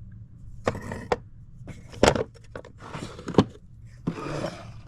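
Old hand tools being handled and rummaged through in a wooden tool box. A few sharp knocks and clinks come between short scraping, rustling noises.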